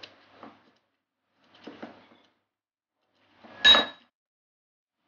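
Mint leaves being crushed in a small glass bowl with a metal utensil: separate knocks about every one and a half seconds, the loudest near the end with a short glassy ring.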